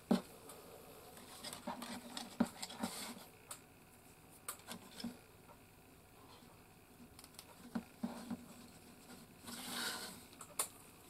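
Hands handling a small hō-magnolia wooden case and its braided cord on a cutting mat: irregular light taps and knocks of the wood against the mat, with rustling of the cord. The sharpest tap comes right at the start, and a brief rustle and another tap come near the end.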